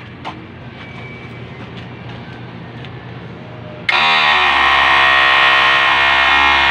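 Push-button electric-hydraulic cab-tilt pump of an Isuzu tractor head switching on about four seconds in with a loud, high whine as it raises the cab. It spins up, runs steadily for about three seconds, then cuts off suddenly.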